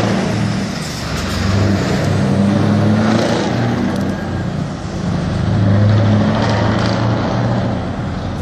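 Diesel engine of a semi-truck pulling a loaded trailer as it drives off, a deep engine note that swells and eases as it accelerates.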